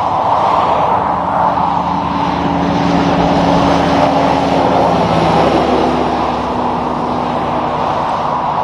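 Western Star concrete mixer truck passing at highway speed: a steady diesel engine drone with tyre and road noise, the engine note dropping slightly in pitch about halfway through as the truck goes by, over steady highway traffic noise.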